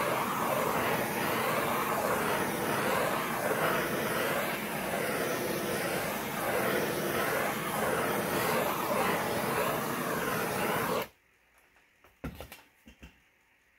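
Hand-held gas torch flame running with a steady hiss that wavers in tone, then cut off suddenly about eleven seconds in; a few light clicks follow.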